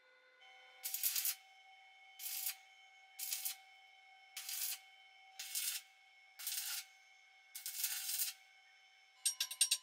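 Seven rasping, scraping strokes, about one a second, each under a second long, over faint steady tones. Rapid ticking starts near the end.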